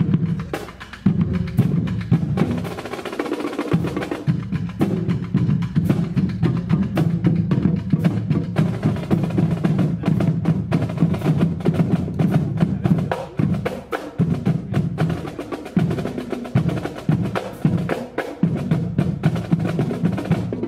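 High school marching band playing a piece: held horn chords under busy, rapid percussion, with drums and congas.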